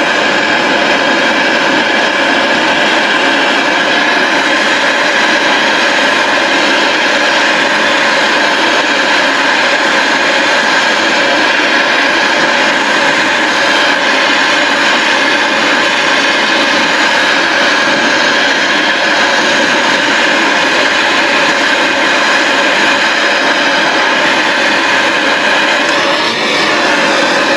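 A machine running steadily and loudly, with a constant whine and no change in speed.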